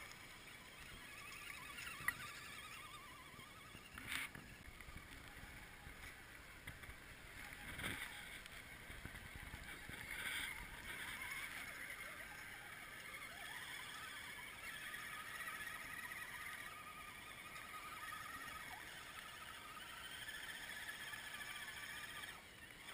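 Faint whine of radio-controlled scale crawlers' electric motors and gearboxes as the trucks crawl through mud, wavering in pitch, with a few short knocks.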